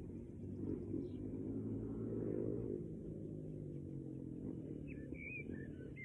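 A passing engine: a low, steady hum that swells about two and a half seconds in and then fades. A bird chirps near the end.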